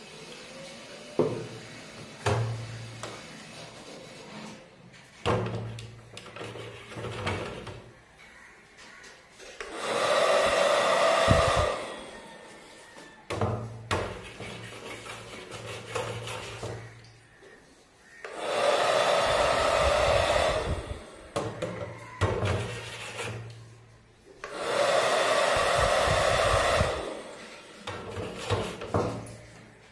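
Battery-powered automatic bubble gun's fan motor whirring in three bursts of a few seconds each, from about ten seconds in. In between come a lower motor hum and sharp knocks of the plastic gun against the steel bowl of bubble solution.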